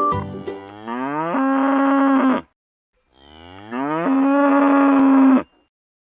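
A cow mooing twice: two long moos, each rising in pitch and then held steady, with a short pause between them.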